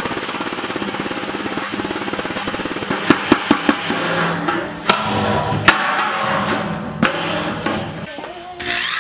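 Rubber mallet hammering the steel lid of a 55-gallon drum to dish it into a wok: a fast run of blows, then four hard strikes in quick succession and a few single blows.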